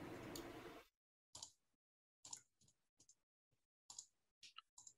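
Near silence, broken by a handful of faint, short clicks at irregular intervals.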